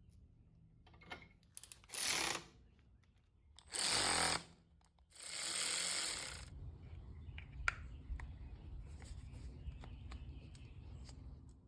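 Handheld power tool run in three short bursts, the last about a second long, the middle one winding down as it stops. Then light clicks and knocks of parts being handled.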